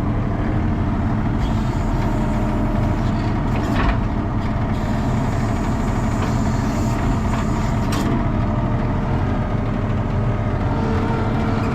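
ASV RT-40 tracked skid steer's diesel engine running steadily under the operator, with two sharp knocks about four and eight seconds in.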